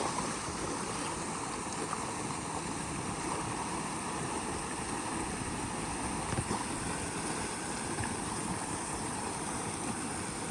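Creek water flowing and cascading steadily into a rock pool, an even rushing hiss.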